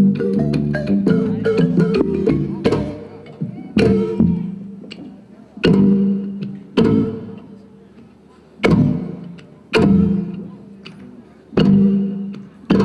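Live band with balafon, guitar and hand drums playing dense music, then, after about three seconds, breaking into sharp accents played together. The accents come mostly in pairs about a second apart, and each rings out and fades before the next.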